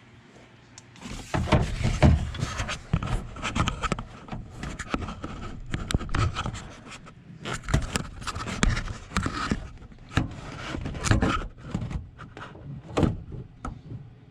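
Irregular knocking, scraping and rubbing against the inside of a Chevy Silverado door's metal shell and panel, starting about a second in.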